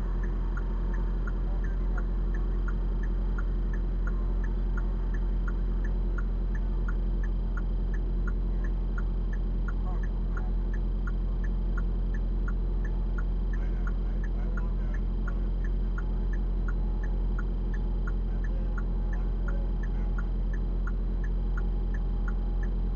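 A car's indicator flasher clicking in a steady, even rhythm inside the cabin, over the constant low hum of the idling car.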